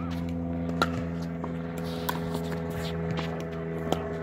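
Pickleball rally: a series of sharp pops as the plastic ball is struck by paddles and bounces on the hard court, the loudest a little under a second in. A steady low hum runs underneath.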